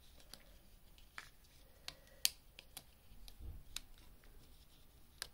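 Scattered faint clicks and taps of a laptop RAM stick being worked out of its packaging, the sharpest click about two seconds in, with a dull thump a little after three seconds.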